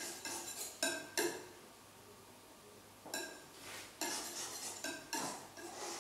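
Oil painter's brush and palette tools clinking against jars and the palette while he works the paint at his palette table. It is a series of about six sharp, irregular clinks, several with a brief ring.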